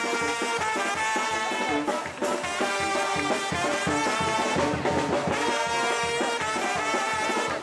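Brass band music: trumpets and trombones playing a lively tune over a steady beat, with a brief drop about two seconds in.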